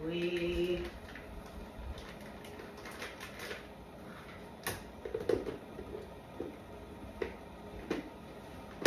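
Scattered light clicks and knocks of kitchen items being handled and put away, with a louder knock near the end.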